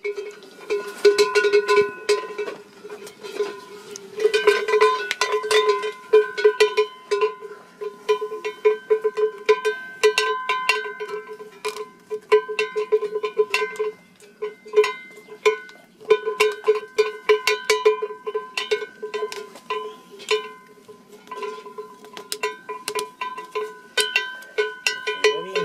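Sheep bell (sonnaille) clanking rapidly and irregularly as it swings on a sheep's neck, each clapper strike leaving a ringing metallic tone.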